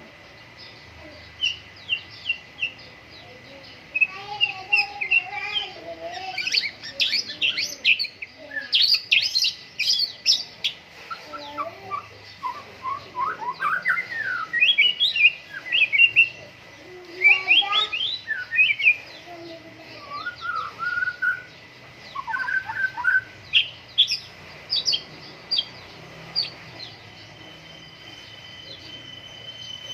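White-rumped shama singing actively: a varied, rapid song of clear whistles, trills and sharp chirps in bursts with short pauses between, falling quiet a few seconds before the end.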